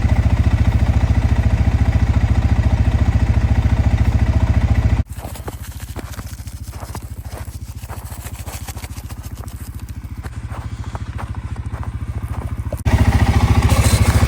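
Vehicle engine running with a steady, rapid pulse. It drops suddenly to much quieter about five seconds in and comes back loud near the end.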